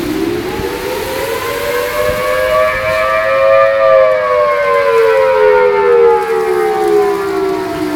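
Outdoor civil-defense warning siren wailing during a tornado. Its pitch rises for about four seconds, then slowly falls, sounding a tornado warning.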